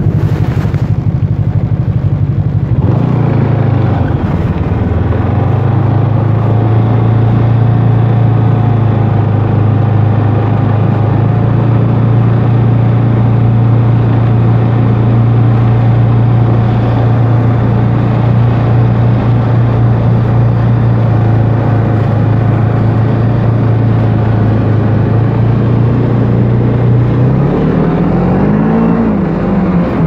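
Snowmobile engine running under way at a steady speed. Its note shifts about three seconds in, holds level for most of the time, then rises and falls a few times near the end.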